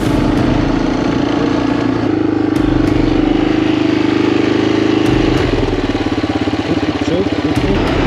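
Yamaha TT600R's single-cylinder four-stroke engine running loud and steady. About five seconds in, its note drops into a slower, pulsing beat.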